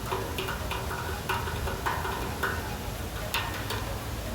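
Fountain water splashing in a steady hiss, with scattered short clicks over it, the sharpest about three seconds in.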